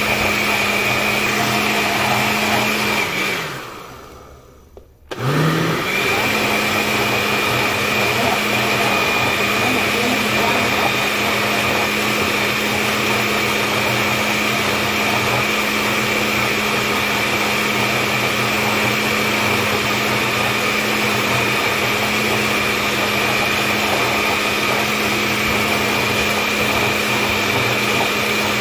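Countertop blender running on a liquid mix of cooked quinoa, milk and eggs with a steady motor whine. About three seconds in it is switched off and winds down, then is switched back on about two seconds later, its pitch rising quickly, and runs steadily again.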